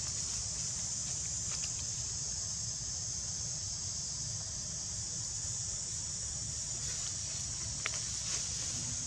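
Steady high-pitched insect chorus, with a low rumble beneath it and a couple of faint ticks.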